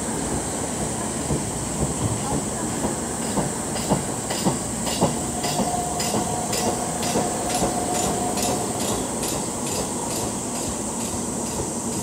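Keikyu electric train rolling slowly, its bogie giving a regular knock about two to three times a second, the abnormal noise from wheel flats after the car struck a fallen tree. A steady high squeal sounds for about three seconds in the middle.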